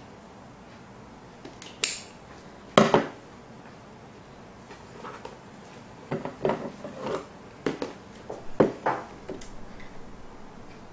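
Scissors snipping and a gift box being handled and set down while the packaging is opened: scattered clicks and knocks, the loudest about three seconds in, then a cluster of them in the second half.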